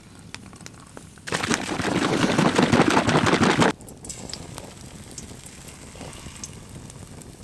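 A plastic shake-and-pour pancake mix bottle, with water just added, is shaken hard for about two and a half seconds, giving a loud, rapid rattling slosh that stops suddenly. After that comes a quieter steady sizzling and crackling as batter is poured into a hot frying pan over the campfire.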